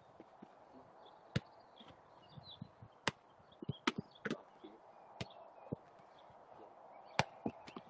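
Football being kicked and bouncing: several sharp thuds at irregular intervals.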